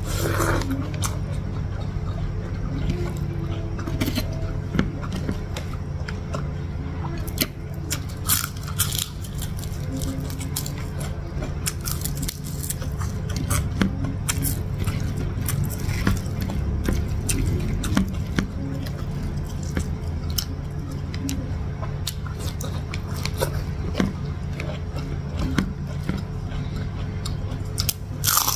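Close-miked eating sounds: wet chewing, lip smacks and short clicks of someone eating rice by hand, with a crunchy bite into a cracker near the end. A steady low hum runs underneath.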